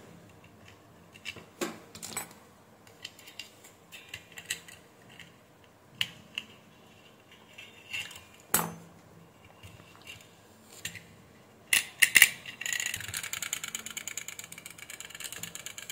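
Small clicks and knocks of plastic timer parts being handled as a repaired plastic gear is fitted into an analog timer's gear train. About twelve seconds in come two sharp clicks, then the timer's mechanism runs with a steady rapid ticking, the mended gear turning smoothly without jumping.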